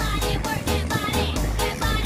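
Background electronic music with a steady, quick beat and a repeating bass line.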